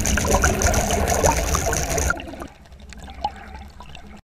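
Rushing, bubbling water, loud for about two seconds, then dropping to a quieter gurgle with a few small clicks before cutting off suddenly.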